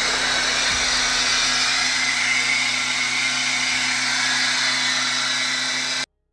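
Four-cylinder engine of a 2011 Chevrolet Tornado running steadily with the hood open, a constant hum under a loud hissing whir. It cuts off abruptly near the end.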